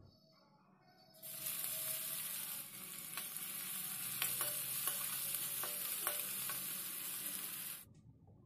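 Chopped onions sizzling in hot oil in a steel kadai. The sizzling starts suddenly about a second in. A steel spoon stirs them, clinking and scraping against the pan several times, and the sizzle cuts off near the end.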